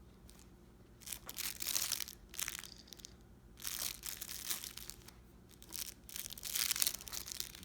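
Crinkly pages of a soft cloth baby book being handled and turned, crinkling three times.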